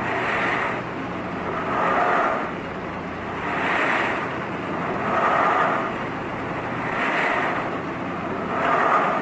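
Tank respirator (iron lung) running, its bellows pushing air in a rhythmic whoosh that swells and fades about every second and three-quarters, over a steady low hum: the machine is breathing for the patient.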